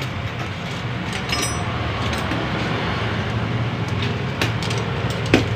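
Steady low hum of background shop and street noise, with scattered small clicks and a few light metallic clinks as garment steamer parts and screws are handled during disassembly.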